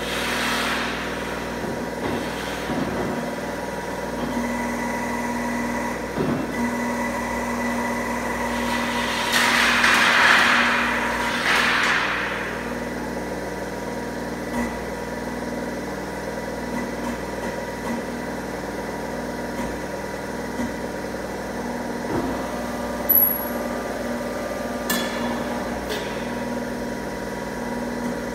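Steel bar bending machine running with a steady motor hum, holding several constant tones. A louder rushing swell comes about ten seconds in, and a couple of sharp clicks near the end.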